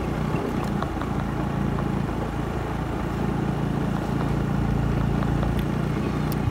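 Small motorbike engine running steadily under way, with a faint road and wind hiss over it.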